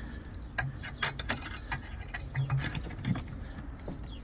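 Scattered light metallic clicks and ticks from rusted car-body sheet metal being worked by hand as a pie-cut flap is dug out and peeled up.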